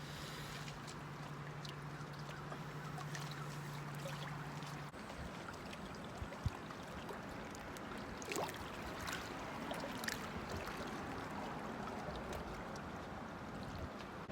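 Lake water lapping and trickling at the shore, with scattered small clicks and splashes. A low steady hum stops abruptly about five seconds in.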